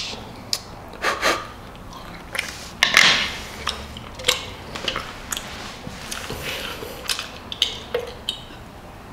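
Eating sounds at a table: a thin metal utensil clicking and scraping on a small tray, with chewing, and a louder rustle about three seconds in. Near the end a drink can is lifted and sipped from.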